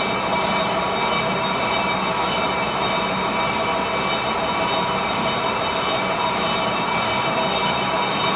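Metal lathe skimming a brake disc, the cutting tool running across the disc's rusty face. A steady metal-on-metal screech that holds several high tones over the running machine's noise.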